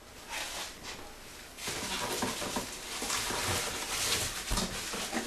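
Plastic wrapping and a cardboard box rustling and crinkling as a packed part is lifted out of the box. The rustling starts a little under two seconds in, after a quieter moment.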